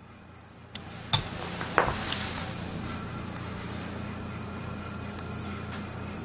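A few sharp clicks and clinks, the loudest just under two seconds in, as a Samsung YP-P2 media player is handled and picked up off a glass tabletop, over a steady low hum and hiss.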